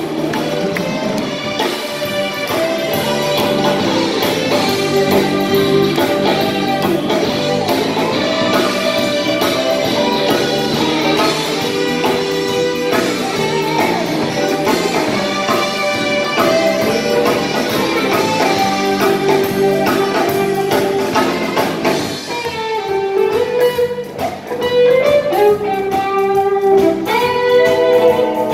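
Jazz band playing live, with saxophones, electric guitars, keyboard and drum kit. About two-thirds through, the ensemble drops back and an electric guitar lead with bending notes comes forward.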